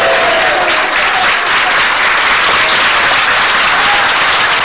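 A large crowd clapping steadily, with a few voices calling out through the applause.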